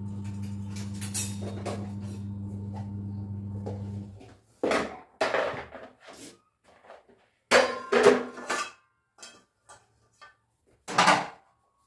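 Kitchen utensils and containers clattering as they are picked up and set down on the counter: a few separate knocks and rattles, the loudest about 8 seconds in and another near the end. A steady low hum runs through the first four seconds and cuts off.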